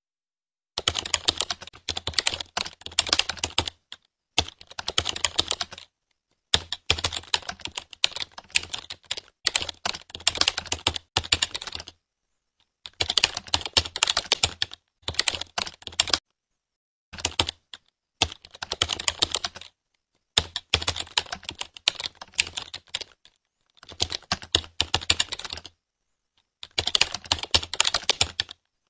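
Computer keyboard typing sound effect: runs of rapid keystrokes, each one to three seconds long, broken by short stretches of dead silence, in time with text being typed onto the screen.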